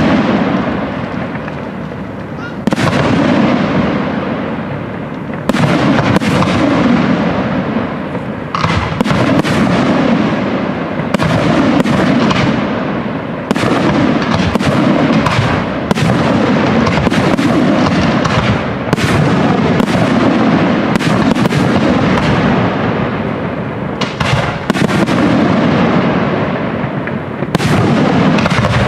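Aerial firework shells bursting in a fireworks display: about twenty sharp bangs, one every one to three seconds and coming faster in the middle, each trailing off into the next.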